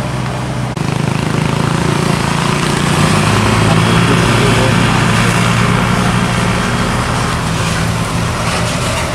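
Diesel engine of a Hino Dutro small dump truck running steadily as it drives past, its low engine hum swelling about three seconds in, with tyre and road noise. Under a second in, the sound changes abruptly from another truck moving away.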